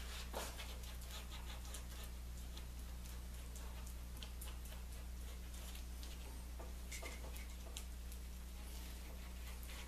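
Faint, irregular ticks and light scratching of a glue brush spreading wood glue over a thin baltic birch plywood strip, over a steady low hum.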